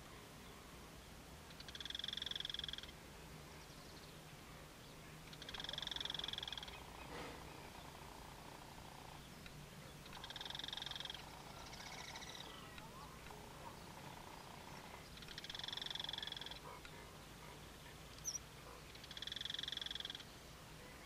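An animal calling: five buzzy calls, each about a second long, repeated roughly every four seconds over a faint steady low hum.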